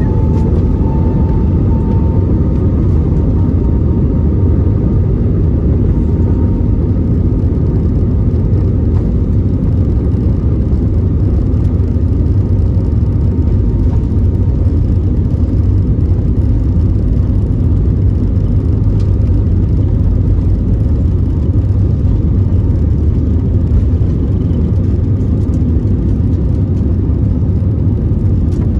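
Aircraft engines at takeoff power, heard from inside the passenger cabin: a whine that rises and settles in the first second or two, over a loud, steady rumble.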